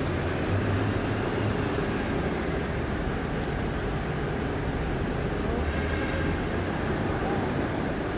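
Large diesel coach bus idling in its bay, a steady low engine hum with no revving.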